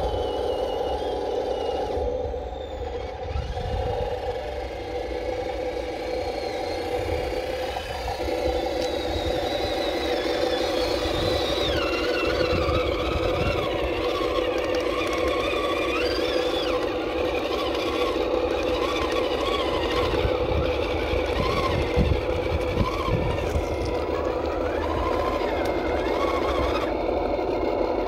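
Motor and gearbox of a 1/12-scale Cross RC KrAZ-260 6x6 radio-controlled truck running as it drives, a steady whine whose higher tones rise and fall with the throttle.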